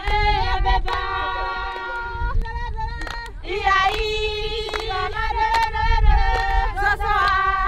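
Music: high singing voices holding long notes, with sharp percussive hits and a low beat underneath.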